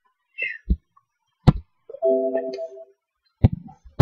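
A sharp click, then about half a second later a short Windows alert chime of a few steady tones, lasting just under a second, sounding as an error dialog pops up. Softer clicks and knocks come before and after.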